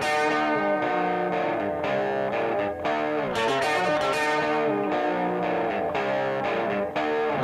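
Background music led by a guitar, with sustained notes changing about once a second.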